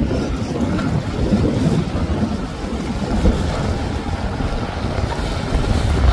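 Wind buffeting the microphone over the steady rush of a center-console motorboat running fast through choppy water, its hull throwing spray.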